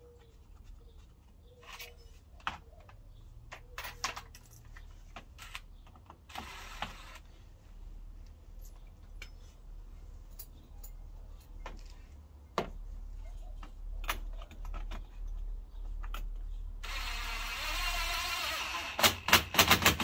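Scattered clinks and knocks of tools and loose hardware, then a cordless power driver runs for about two seconds near the end, driving in the front spoiler's fasteners, followed by a quick string of loud clicks.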